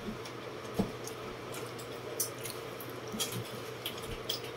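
Wet mouth sounds of a person eating by hand: short smacking clicks of chewing at irregular intervals, with one sharper knock about a second in. A steady electric-fan hum runs underneath.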